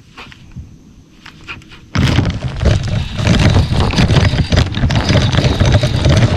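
A few light clicks, then about two seconds in a sudden loud rumble and rubbing of cloth and hands against the camera's microphone as the camera is handled, with a fish on a bent baitcasting rod.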